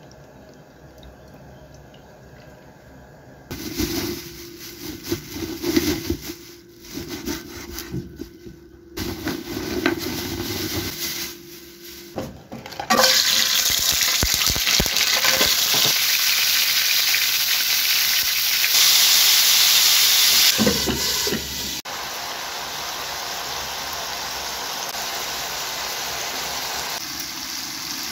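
Liquid poured into a nonstick frying pan, splashing unevenly. About halfway through, a loud steady hiss starts and runs on, briefly louder about two-thirds of the way in.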